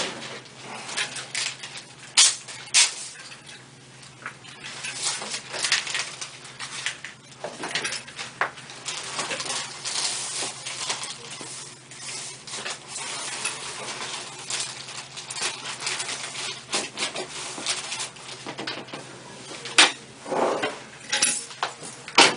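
Scattered sharp clicks and taps with rustling between them, over a low steady hum.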